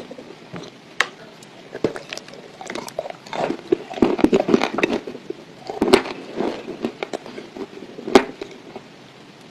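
Close-miked biting and chewing of dry Ural clay: sharp snaps as pieces break off, with a stretch of dense crunching in the middle and one loud snap near the end.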